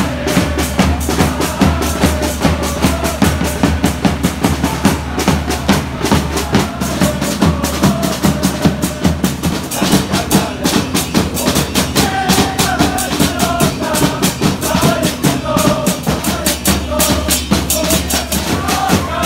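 Football supporters' group singing a chant in unison over a steady, loud drumbeat.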